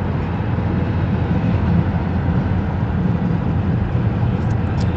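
Steady engine and tyre noise inside a moving car's cabin. It is a constant, mostly low-pitched drone.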